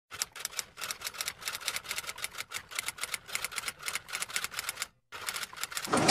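Rapid, even clicking like typewriter keys, with a short break about five seconds in.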